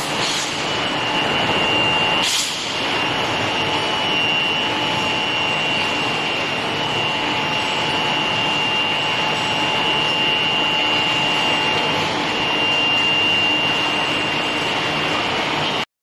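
Steady industrial machinery noise from a steel-ball rolling line with an induction heating furnace, with a thin high whine running through it. A single sharp clack comes about two seconds in, and the sound cuts off suddenly near the end.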